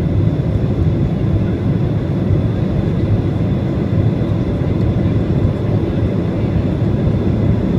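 Cabin noise inside a Boeing 737-400 taxiing: its CFM56-3 engines run at low thrust as a steady low rumble with a faint high whine.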